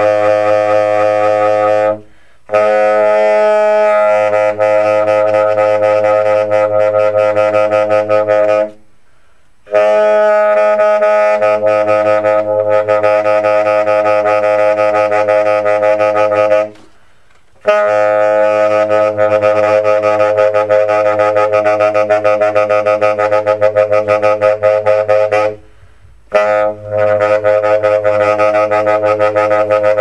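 Tenor saxophone holding long, low drone-like notes full of overtones, in phrases of about seven or eight seconds broken by brief breath pauses, with a fast fluttering pulse in the tone during the later phrases.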